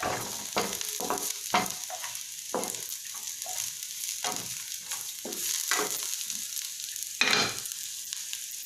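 Garlic and onions sizzling in hot oil in a frying pan, with a spatula stirring and scraping the pan in repeated strokes, about one or two a second; the garlic and onions are browning for the base of an adobo.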